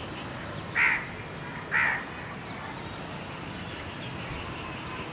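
Two short, harsh, caw-like bird calls about a second apart. Faint thin chirps of small birds come in between and after them.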